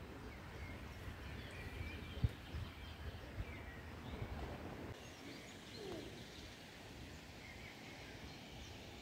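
Small birds chirping faintly over a low rumble, with a single sharp knock a little over two seconds in.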